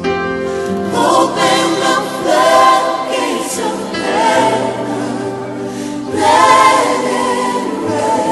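Contemporary Christian worship music: a choir singing over instrumental accompaniment, the voices swelling in long held phrases.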